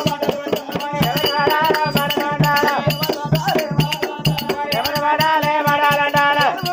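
Oggu katha folk ballad singing, the voice sliding and holding long notes over a fast, steady hand-percussion beat.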